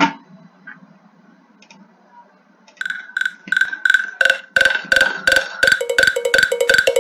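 A sharp click, then about three seconds in a home-made percussion loop starts: knocks sampled from wood, Lego bricks and a trash can, with no pitched instruments, about three hits a second. About a second later more layers come in and the hits grow denser and louder.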